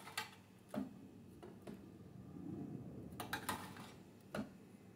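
Metal spoon clinking and scraping against a metal roasting pan while pan juices are spooned out: a handful of sharp, irregular clinks, with a quick run of three a little past the middle.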